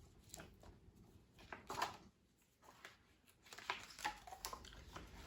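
Faint rustling and soft handling sounds of a picture book being picked up and opened, in short scattered bits about two seconds in and again near the end.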